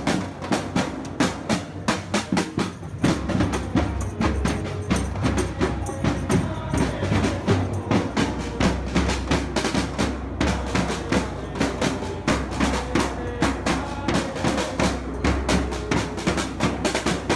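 Marching snare drums and a bass drum played together in a steady, driving rhythm, with dense rolls and hits from start to finish.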